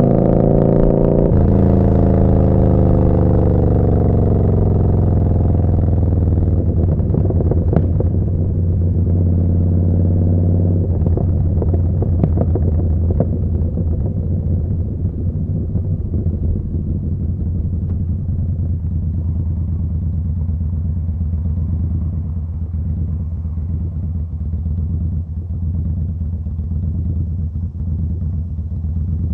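Yamaha Bolt's air-cooled V-twin running through a Vance & Hines slip-on exhaust, heard from the rider's seat. The pitch climbs briefly and steps down with a gear change about a second in, then falls away as the bike slows, and settles to a low, steady running note for the rest of the time.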